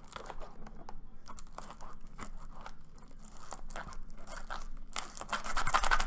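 Clear plastic wrap and tape on a cardboard trading-card box being scratched, picked at and crinkled by hand, with many small clicks and tearing scrapes. The scratching turns denser and louder near the end.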